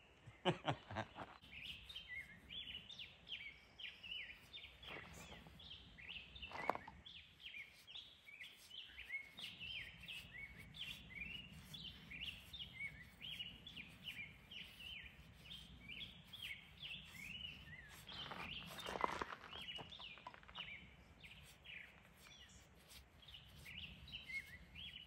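A small bird chirping over and over, short high notes several a second, faint and steady. A few brief louder sounds break in near the start and at about 7 and 19 seconds in.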